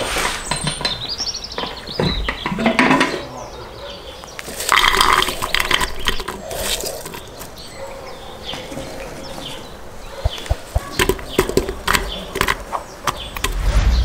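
Aluminium cooking pot being handled: its metal lid comes off with clanks, then sliced onions and carrot rounds are dropped into the empty pot, landing as a quick run of light taps and knocks on the metal near the end.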